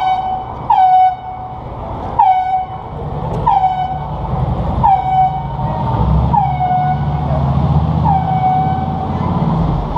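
Air horn sounded in a string of short blasts, about one every second and a half. Each blast starts with a brief higher squawk that drops to a steady tone, and the last ones are held a little longer.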